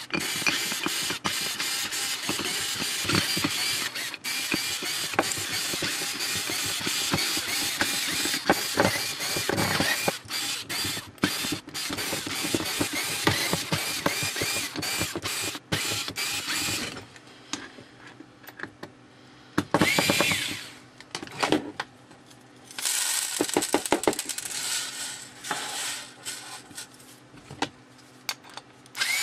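Small electric screwdriver backing out a long run of small screws from a machined aluminium block. Its motor runs almost continuously for about 17 seconds, then in a few shorter bursts with clicks between.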